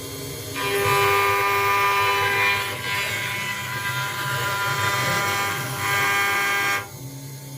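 CNC router spindle machining an acrylic sheet: a steady motor hum that grows much louder, with a high whine and hiss, from under a second in, as the cutter works the material. It drops back abruptly to the quieter hum near the end.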